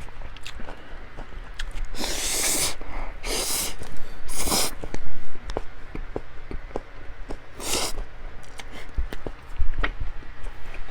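Close-miked eating: chewing with many small wet mouth clicks and smacks, broken by four short breathy bursts like sniffs or nose exhales, about two, three, four and seven and a half seconds in.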